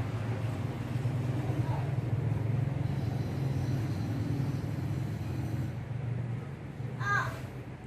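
Steady low rumble of a motor vehicle running, easing off about six seconds in. A short, high-pitched call is heard about a second before the end.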